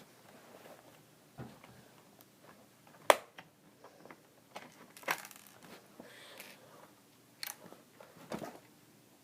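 Scattered clicks and knocks of a gun being handled for loading, with a sharp click about three seconds in and a few more toward the end.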